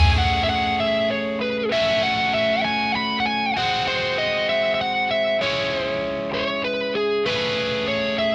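Instrumental music: an electric guitar with effects plays a slow melodic line of held, bending notes over a steady low note, without bass or drums.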